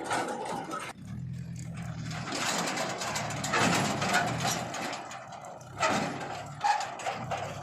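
Diesel engine of heavy earthmoving machinery running, a steady low hum broken by louder, rougher stretches of working noise.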